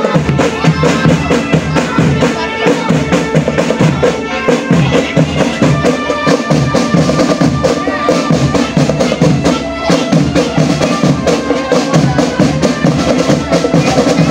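Marching drum band playing: bass and snare drums beating a steady, dense rhythm under a held melody line.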